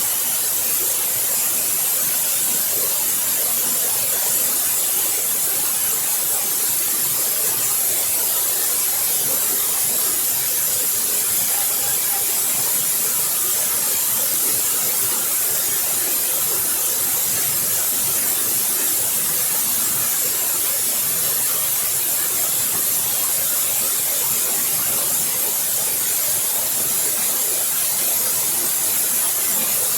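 Waterfall: water pouring and splashing in a steady, unbroken rush with a strong hiss.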